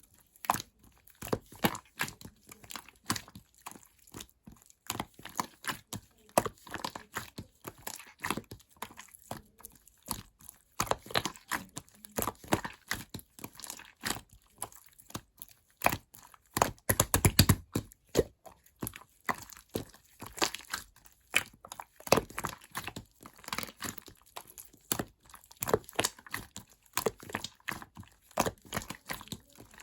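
Slime being squeezed and pressed by hand: a steady run of irregular sticky clicks and small pops of trapped air, with a dense cluster of pops about two-thirds of the way through.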